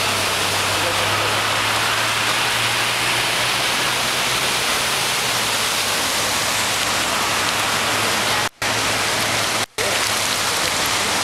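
Steady rushing of floodwater across a flooded road, with a faint low hum of a vehicle in the first half. The sound cuts out briefly twice near the end.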